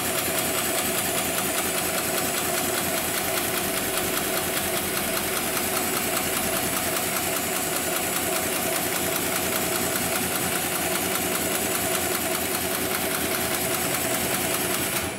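Hightex 7273 PLK computerized pattern sewing machine stitching a box-X pattern through four layers of heavy-duty webbing, needle running at a steady, fast stitch rate; it stops right at the end.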